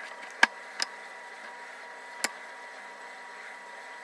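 Handling sounds from working bread dough over a metal baking sheet: three short sharp clicks, the loudest about half a second in, over a steady background noise with a faint steady whine.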